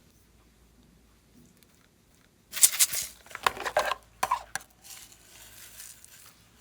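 Slime being squished and mixed: after a quiet start, a loud burst of wet crackling and popping about two and a half seconds in, lasting about two seconds, then softer squishing.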